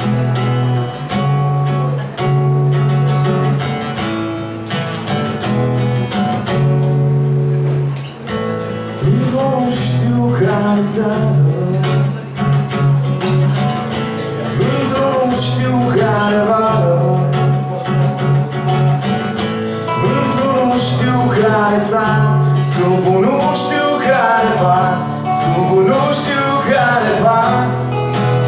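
Live band music played on electric and acoustic guitars, opening with sustained chords for about nine seconds before a voice comes in singing the melody.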